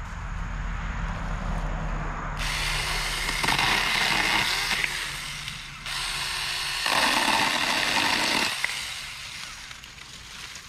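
Saker mini battery-powered chainsaw with a 4-inch bar running in two bursts as it cuts through branches. The first burst starts about two seconds in; after a short break a second burst follows, stopping near the ninth second.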